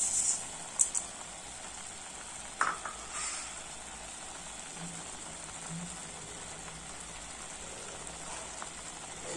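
Grated raw papaya cooking in its juices in a metal karahi: a steady, soft sizzle, with a couple of faint clicks in the first few seconds.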